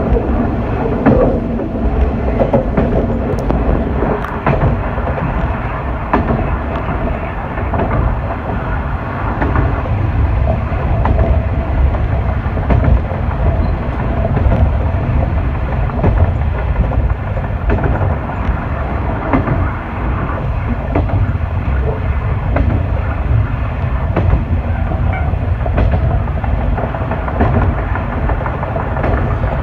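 Diesel railcar running at speed on single track, heard from inside at the front: a steady low rumble of engine and running gear, with wheels clicking over rail joints now and then.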